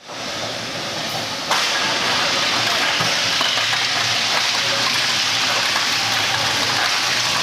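Metal shredder running under load, shredding thermal-break (bridge) aluminum profiles: a dense, steady noise that steps up in level about a second and a half in.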